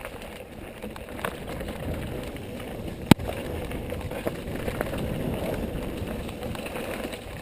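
Mountain bike rolling fast down a dirt trail: steady tyre noise and the bike rattling over the ground, with one sharp knock about three seconds in.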